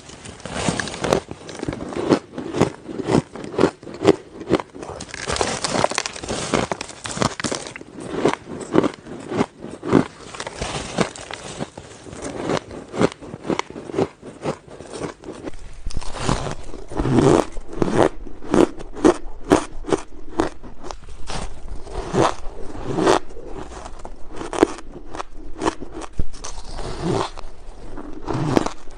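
Ice being bitten and chewed close to the microphone: a continuous run of crisp crunches and crackles as the ice breaks between the teeth.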